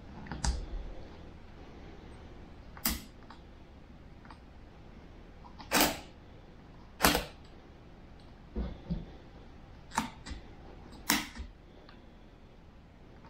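A series of short, sharp clicks and knocks at irregular intervals, about nine in all, over faint room hiss; the two loudest come about six and seven seconds in.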